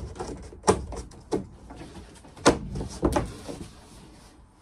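Thin ceiling panels knocking and rattling as they are pushed back up into place by hand: a handful of sharp knocks with small clatters between them, the loudest about two and a half seconds in.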